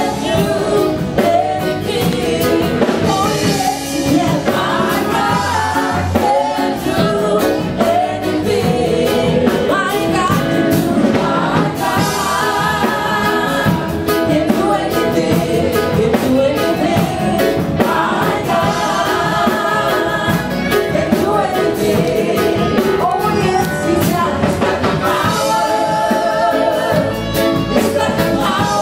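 A live gospel band plays with a choir of voices singing together over a steady drum beat.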